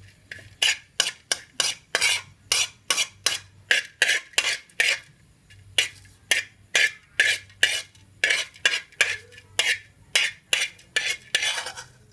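A metal spoon scraping and stirring browned garlic around the bottom of a steel wok, in quick, even strokes about two or three a second, with a brief pause about halfway.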